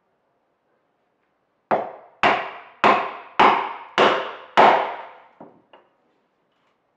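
Wooden mallet striking a chisel six times, about one blow every 0.6 seconds, chopping a mortise into a wooden bench top, followed by two lighter knocks.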